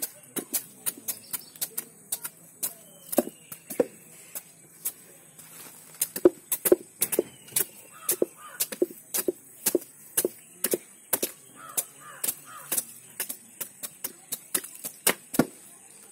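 Small hatchet chopping the thick rind off a raw jackfruit: a run of sharp knocks at about two a second, loudest in the middle stretch.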